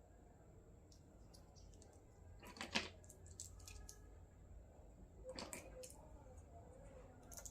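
Small toy pieces being handled: a few soft clicks and rustles, the sharpest cluster about two and a half seconds in and another at about five seconds.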